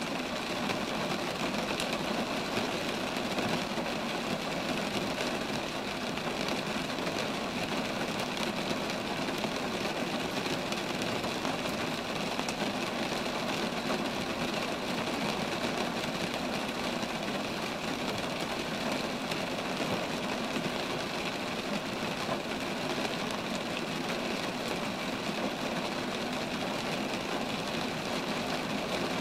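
Steady rain falling on roadside trees, an even hiss with no let-up.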